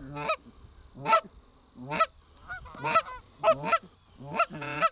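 Canada goose honking: a run of about ten short two-part honks, coming closer together near the end.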